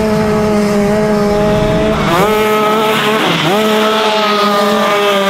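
Two-stroke shifter kart engine running at high revs, its pitch holding steady, then dropping and climbing back twice.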